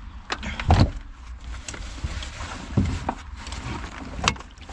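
Backpack being handled and packed close to the microphone: rustling with several irregular thumps and knocks, the loudest just under a second in.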